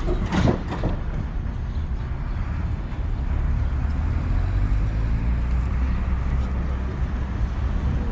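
Steady low rumble of a moving road vehicle: engine and road noise, with a brief louder sound about half a second in.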